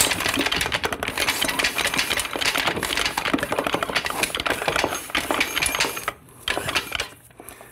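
TH400 (Turbo 400) direct clutch drum being twisted back and forth inside the transmission case, rattling and clicking steadily as it is worked past the intermediate clutch plates to spline into them. The rattling stops about six seconds in, followed by a couple of single knocks.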